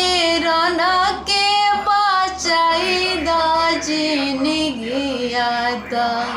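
A woman singing a Bhojpuri devotional song to the goddess Bhavani, one voice in long held notes that waver and slide between pitches.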